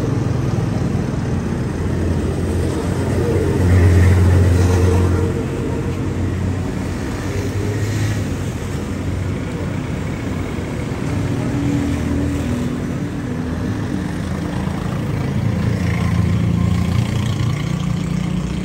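Engine noise of passing street traffic, one vehicle louder for a second or so about four seconds in.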